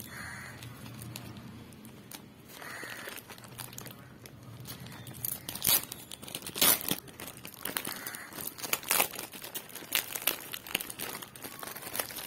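Plastic courier mailer bag crinkling and crackling as it is handled and pulled open, quiet at first, then irregular sharp crackles that come thick and fast from about halfway in.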